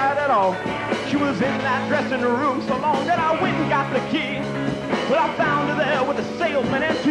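Live rock band playing an original song: electric guitars, bass and a drum kit, with a bending melodic line over steady low notes.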